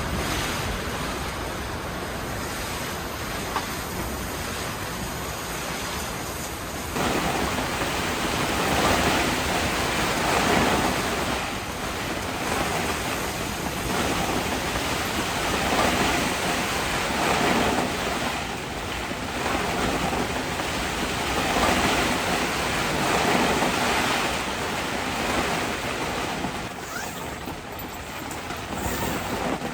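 Heavy rain pouring on a camping tent in strong wind: a steady hiss that gets louder about seven seconds in, then swells and fades every couple of seconds as gusts drive the rain.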